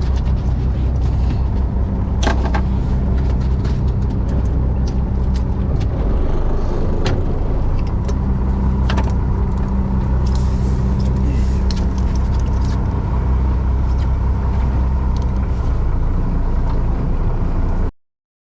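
Fishing boat's engine running steadily with a low hum, with scattered clicks and knocks over it; it cuts off suddenly near the end.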